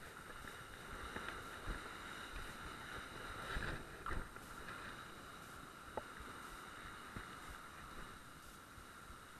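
Faint, muffled sea surf breaking and washing over rocks, with light wind on the microphone and a couple of small knocks.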